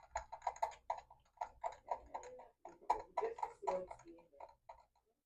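Ratchet wrench clicking in quick runs, about five clicks a second, as a spark plug is run into the engine; it stops about five seconds in.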